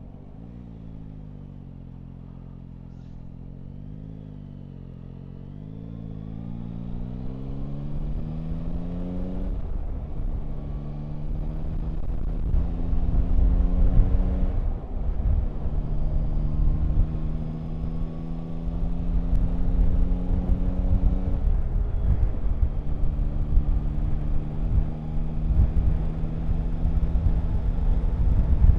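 Yamaha Tracer 9 GT's three-cylinder engine at low revs out of a bend, then accelerating. The pitch climbs and drops at gear changes about ten, fifteen and twenty-one seconds in, before settling into a steady cruise. Wind rumble grows louder as the speed builds.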